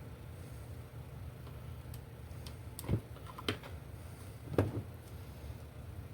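A few sharp clicks and knocks from hands working on small parts of a work light during a switch repair, the three loudest in the second half, over a steady low hum.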